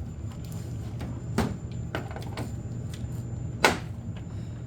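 A few sharp plastic knocks and clicks as casters are pushed into the base of a dehumidifier, the loudest about three and a half seconds in. Under them is a steady low hum from the dehumidifier running.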